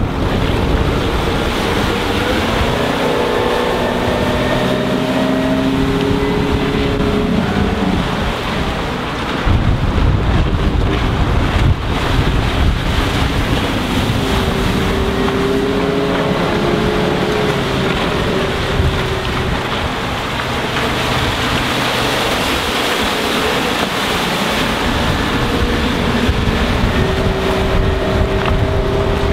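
Suzuki 140 hp four-stroke outboard on a RIB running at speed, its pitch rising and falling as the boat accelerates and turns. Heavy wind noise on the microphone and rushing water run underneath.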